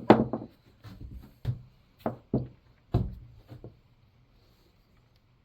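A series of sharp knocks and clicks of tools and small parts being handled on a workbench as a chainsaw carburetor is taken apart. They stop about three and a half seconds in.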